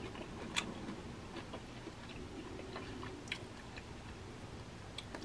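A few faint, scattered soft clicks and ticks, three sharper ones about half a second in, about three seconds in and near the end, over a low steady hum.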